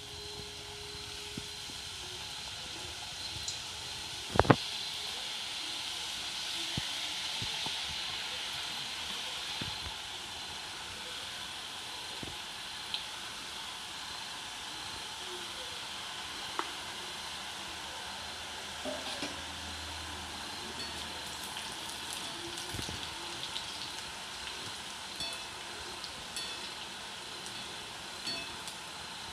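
Small wheat-flour dough pieces deep-frying in hot oil in a steel wok: a steady bubbling sizzle, fullest in the first ten seconds or so. A single sharp knock about four seconds in, and a few light ticks later on.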